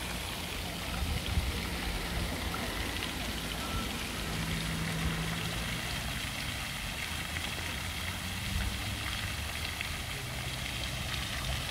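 Pond fountain spraying: a steady hiss and patter of water jets falling back onto the pond surface, with a low steady hum underneath.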